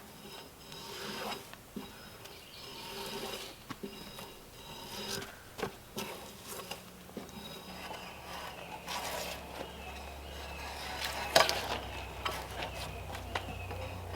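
Intermittent scraping and light knocks of hand tools working a cedar log, with one sharp knock near the end. A low steady hum comes in about halfway through.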